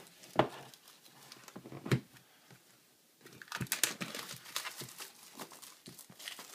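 Product packaging being handled and opened: a couple of sharp knocks in the first two seconds, then, after a short pause, crinkling and rustling from about three seconds in.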